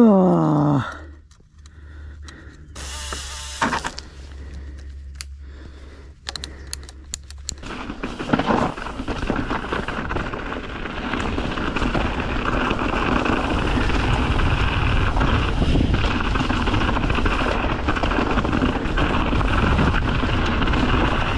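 A short falling cry at the very start, then a few seconds of scattered clicks and rustles. From about eight seconds in comes the steady rushing, rattling noise of a mountain bike being ridden down a dirt trail, growing slightly louder.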